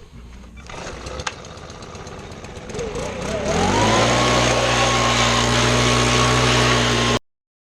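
Electric air blower switched on: its motor whine rises over about a second to a steady pitch, with a loud rush of air, then cuts off suddenly near the end. It is drying a freshly washed engine bay.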